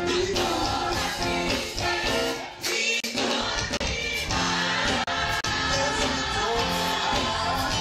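Live gospel choir singing, with a male lead vocalist singing into a microphone among the choir's voices. The sound dips briefly about two and a half seconds in.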